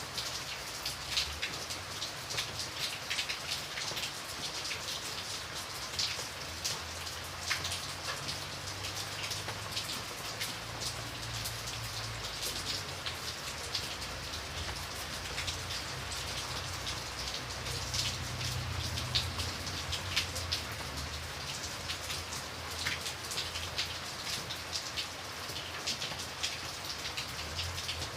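Steady rain falling, a constant hiss with many individual drops ticking sharply through it, and a low rumble underneath that swells and fades.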